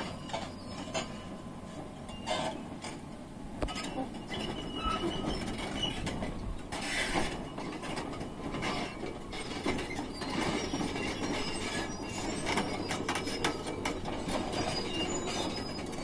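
Hydraulic excavator running with a steady low hum, under many irregular metallic clanks, clicks and short squeals as the machine and its breaker attachment work over rock rubble.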